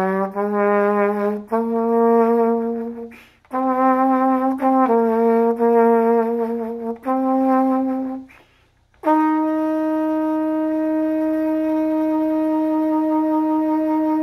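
Solo trumpet playing a slow melody: a few short phrases of separate notes with pauses for breath between them, then a single long held note from about nine seconds in.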